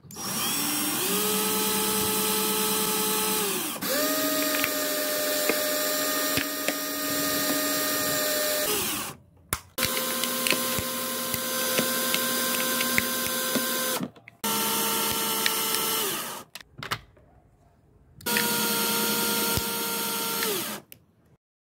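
Small electric motor driving the pump of a homemade hydraulic press, whining as it pumps oil to push the ram down onto an aluminium can. It starts and stops abruptly five times in runs of two to five seconds, its pitch shifting from run to run.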